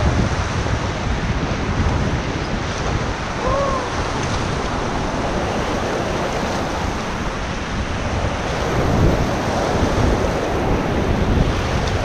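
Fast whitewater rapids rushing and splashing around an inflatable raft, with wind buffeting the microphone.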